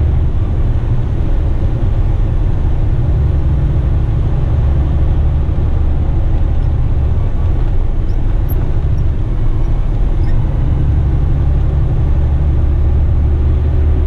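Western Star tipper truck's diesel engine and road noise heard from inside the cab while cruising on the motorway: a loud, steady low rumble.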